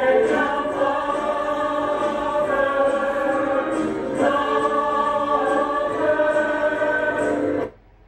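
Stage musical cast singing together in chorus with musical accompaniment, heard from the audience. The music cuts off abruptly near the end.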